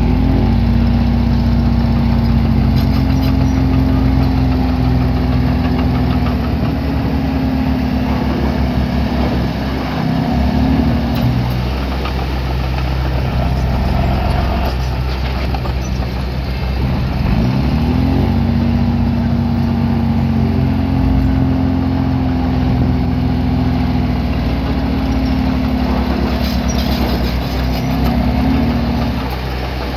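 Small bulldozer's diesel engine working under load: the revs climb at the start and again about halfway through, hold for around ten seconds each time, then drop back toward idle.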